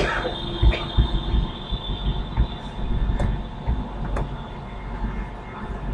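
Steady low background rumble and hum of the recording room, with a few sharp mouse clicks as desktop menu items are chosen.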